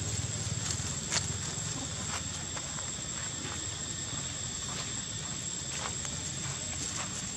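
Scattered light crackles like footsteps on dry leaf litter, about one a second and the sharpest just over a second in, over a steady outdoor hiss and a thin, steady high-pitched whine.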